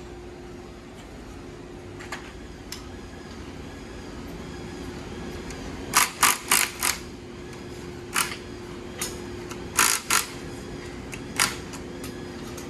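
Sharp clicks and clacks of parts and hand tools being worked on a motocross bike during teardown, including a quick run of four clicks about six seconds in. A steady low hum runs underneath.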